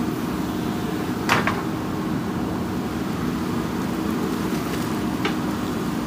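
JCB 3DX backhoe loader's diesel engine running steadily as the backhoe digs, with a sharp knock about a second in and a lighter one near the end.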